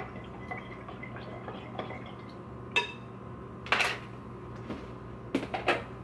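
Plastic spoon stirring liquid in a glass bowl, then a few sharp clicks and knocks, about three seconds in and twice near the end, as kitchen utensils and a plastic storage container are handled.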